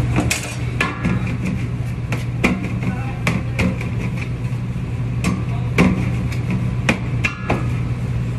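Knife chopping shawarma chicken on a round metal tray: irregular sharp knocks, roughly one to two a second, some with a brief metallic ring from the tray. A steady low hum runs underneath.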